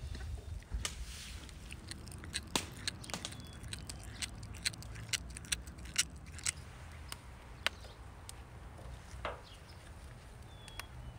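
A cat chewing and tearing at raw beef liver on a metal tray: a run of sharp, irregular clicks and smacks, thinning out near the end.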